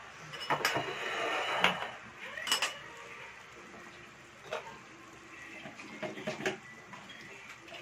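Kitchenware clinking: a scattered series of short, sharp clinks and knocks of dishes and metal utensils, loudest about two seconds in, over a low background hiss.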